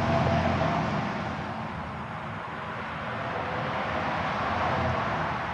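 Outdoor road traffic noise, rising to a swell about four to five seconds in as a vehicle passes, then fading.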